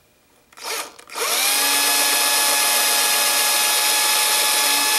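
Small electric drill spinning up about a second in after a brief blip, then running steadily at high speed while drilling a shallow hole that does not go all the way through.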